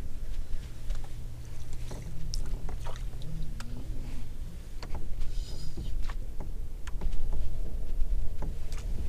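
Camera handling on a boat deck: rubbing against a jacket, with scattered clicks and knocks over a low rumble. A steady low hum runs for about the first three seconds, then stops.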